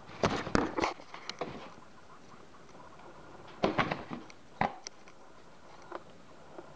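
A cat's paw scratching and tapping against a cardboard box and a metal utensil poked through its hole: a quick cluster of short scrapes in the first second, another about three and a half seconds in, then a few lighter taps.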